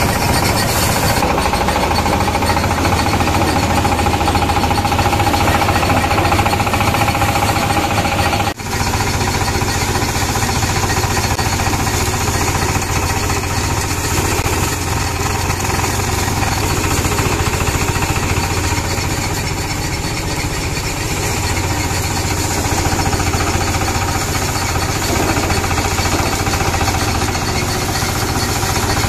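Motor-driven paddy thresher running steadily at speed while bundles of rice stalks are fed into its drum. The noise breaks off for an instant about eight and a half seconds in, then carries on as before.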